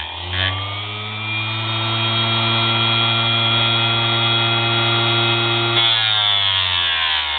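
Small electric motor of a homemade mini grinder with a cut-off disc, spinning up to speed, running with a steady hum, then winding down in pitch near the end.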